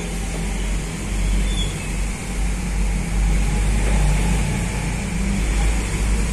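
Bus engine running with a steady low rumble, over a hiss of road traffic.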